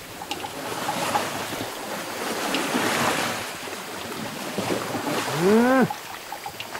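Elephant wading through a shallow muddy stream, its legs splashing and sloshing the water, loudest in the middle. Near the end a single loud call rises and falls in pitch, lasting about half a second.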